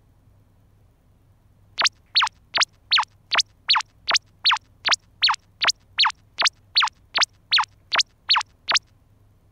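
A comic sound effect added in editing: a short whistle that drops quickly in pitch, repeated identically about nineteen times at a steady pace of roughly two and a half per second, starting about two seconds in and stopping shortly before the end.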